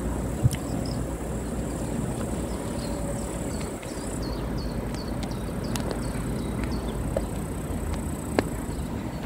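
Low steady rumble of a train, with a run of short high chirps, about two a second, a few seconds in.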